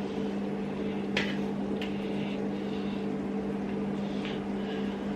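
A steady mechanical hum at a constant pitch, with a few light clicks about one and two seconds in and again near four seconds.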